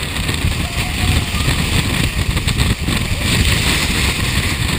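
Storm wind buffeting the camera's microphone, with rain: a loud, dense rumble under a steady hiss.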